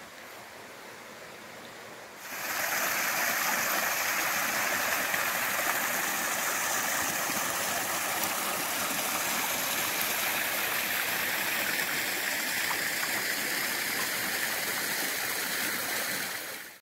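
Water gushing from a pipe and splashing into a pond, a steady rushing that starts suddenly about two seconds in.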